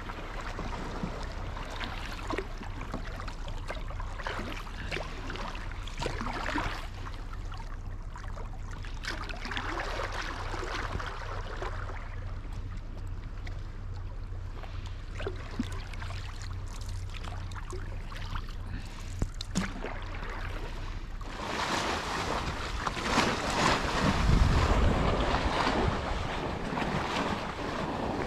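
Kayak paddle strokes dipping and splashing in calm sea water every couple of seconds. In the last third, a louder wash of small waves against a rocky shore, with low wind buffeting on the microphone.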